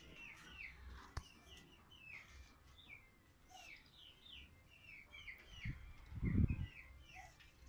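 Birds chirping steadily, short high falling chirps several times a second. A sharp click about a second in and a low thump a little after six seconds, the loudest sound.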